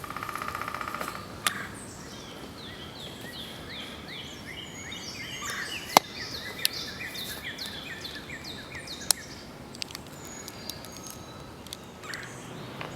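Wild birds calling: a quick buzzy trill at the start, then a long series of short, high, down-slurred chirps overlapping one another, over steady outdoor background noise. A few sharp clicks cut in, the loudest about six seconds in.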